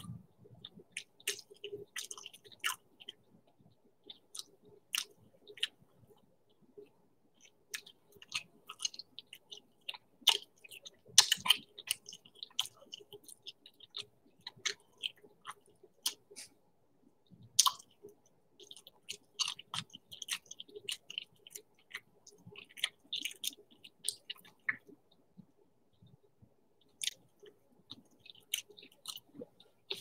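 Close-miked chewing and eating: irregular wet mouth clicks, lip smacks and crunches, with a few louder bursts of crunching partway through.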